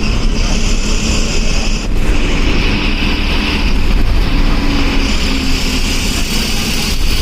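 Eicher bus diesel engine running on the road, heard from inside the driver's cabin: a steady low rumble with high whining tones that shift in pitch a few times.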